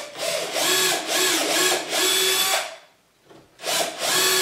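Cordless drill-driver with a small twist bit drilling pilot holes into wood for hinge mounting plates, the motor whirring in short spurts. It stops about three seconds in, then starts again for the next hole.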